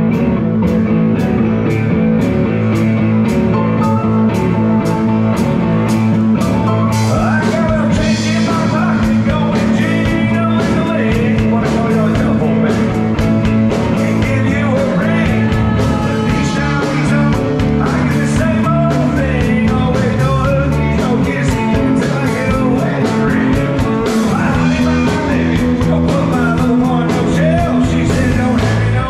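Live rock band playing: electric guitars and a drum kit with a steady beat, and a male singer whose vocals come in a few seconds in.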